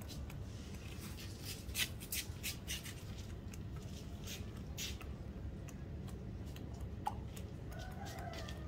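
Desi rooster pecking grain off a concrete floor: irregular sharp beak taps, thickest in the first half, with a short call about seven seconds in and another starting near the end.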